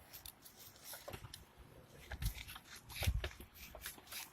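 Sandpaper rubbing through and around the inside of a car's cable terminal in short, irregular scratchy strokes, cleaning it to shiny metal for a good electrical contact. The strokes come thickest in the second half.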